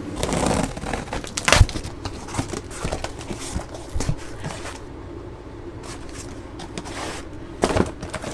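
Cardboard shipping box being opened and unpacked: flaps and packaging rustling and scraping, with scattered knocks as a boxed battery is handled. The loudest knock comes about one and a half seconds in.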